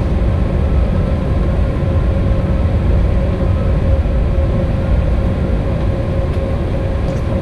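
Steady low rumble inside the cabin of an Embraer E190 airliner taxiing, with a steady mid-pitched hum.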